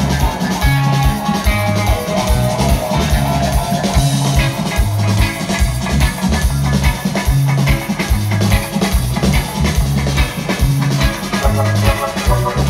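Live reggae band playing, with a heavy repeating bass line under drum kit and guitar on a steady beat.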